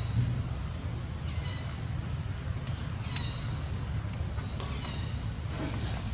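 Short, high-pitched bird calls, some falling in pitch, recurring every second or two over a steady low rumble.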